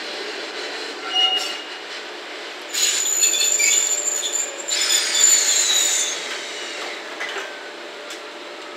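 Wheels of an EF66 electric locomotive squealing against the rails as it creeps through the yard. A short squeal comes about a second in, then a louder high squeal from about three seconds in lasts about three seconds, with a second tone sliding down in pitch before it fades.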